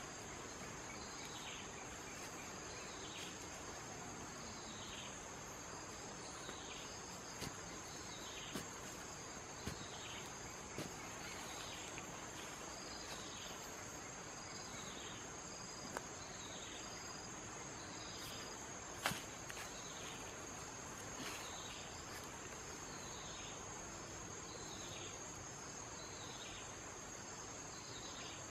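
Insects chirring steadily in a continuous high trill, with a short falling chirp repeating about once a second. A few scattered sharp clicks from hands digging and scraping in dry soil.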